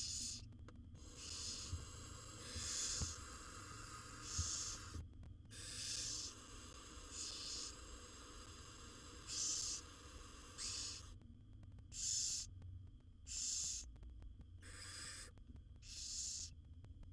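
Barn owl nestlings hissing, the rasping begging call often called snoring. About a dozen hisses, each under a second long, follow one another every second or so.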